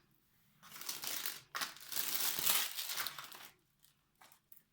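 Packaging wrap crinkling and rustling as items are handled and unwrapped during an unboxing, in two spells, followed by a few light ticks near the end.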